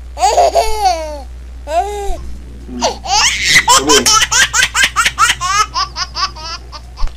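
High-pitched laughter: a couple of drawn-out rising-and-falling calls at first, then from about three seconds in a quick run of short, pulsing ha-ha sounds.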